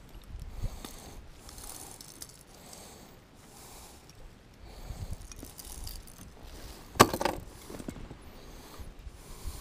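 Fishing gear handled while a small largemouth bass is reeled in and landed in a kayak: faint scattered clicks and rustles from the reel and tackle, with one loud sudden knock and splash about seven seconds in as the fish comes aboard.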